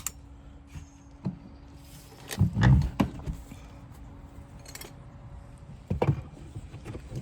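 A few scattered knocks and thuds of siding being pried and worked loose from a wall with hand tools. The loudest is a dull thud about two and a half seconds in, and there is another cluster of knocks near the end.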